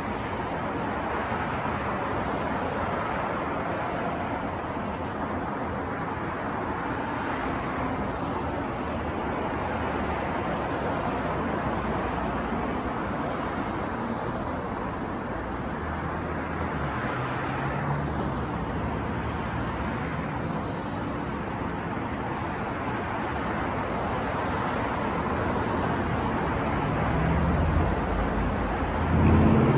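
City street traffic noise: a steady wash of passing cars, with low engine rumbles of heavier vehicles growing louder near the end.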